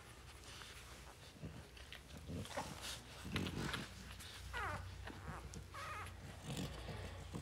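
Newborn French Bulldog puppies squeaking, a few short high cries in the second half, amid snuffling and handling noises.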